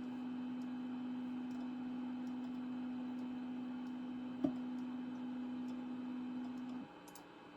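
A steady hum with a few faint ticks, a single sharp click about four and a half seconds in, and the hum cutting off suddenly near the end.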